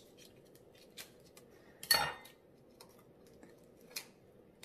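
Dishware clinking: one sharp clink of a dinner plate about two seconds in, with a few faint clicks before and after.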